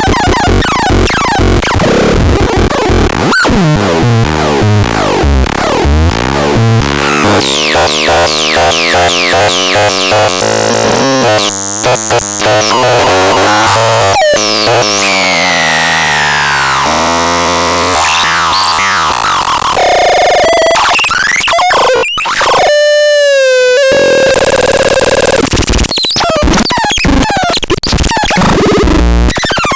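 KOGAX electronic noise synth playing loud, harsh tones: fast rising and falling pitch sweeps, stepping tone patterns and buzzy noise, changing abruptly every few seconds. About two-thirds of the way through it holds a single warbling tone for a couple of seconds.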